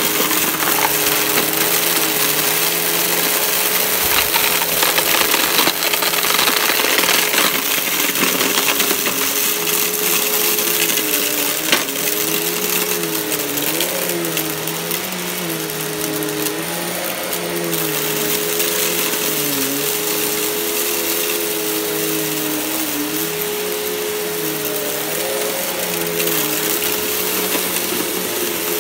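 Riccar bagged upright vacuum cleaner running on carpet: a steady motor hum and airflow hiss whose pitch wavers up and down every second or two as it is pushed back and forth through a pile of dirt, with an occasional sharp click of grit being sucked up.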